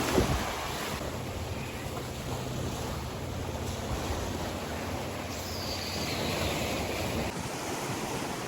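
Ocean surf washing against the shore in a steady wash of noise.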